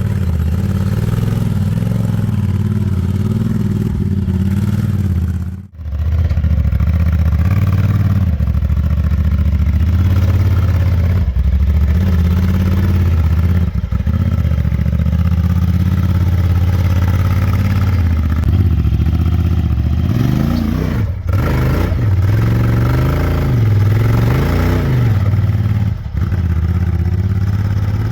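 Honda Talon 1000X4 side-by-side's parallel-twin engine pulling at low speed while it crawls up a rock climb, its revs rising and falling several times in the last third.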